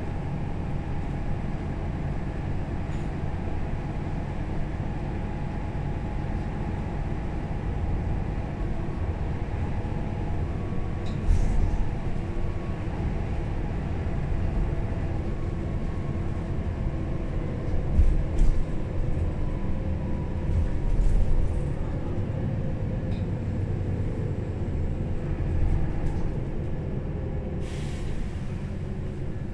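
Cabin noise of a 2009 Mercedes-Benz O530 Citaro Facelift city bus on the move: a steady engine and drivetrain rumble with faint whining tones that drift in pitch. A few short knocks and rattles, the loudest about 18 s in and another near the end.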